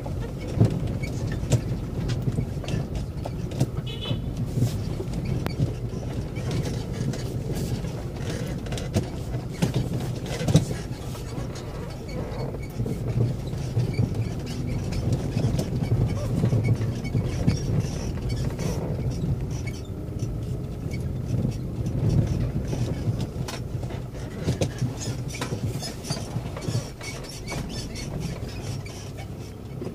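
Engine drone and road noise of a moving vehicle heard from inside its cabin, steady and low, with frequent knocks and rattles as it rolls over rough, unpaved road.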